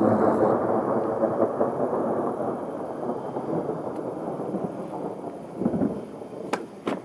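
Thunder: a sudden loud clap that rolls on as a long rumble, slowly dying away. Two sharp clicks near the end.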